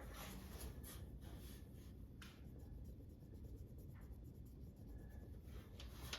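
Faint scratching and a few light taps from small parts being handled on a workbench, over a low steady room hum.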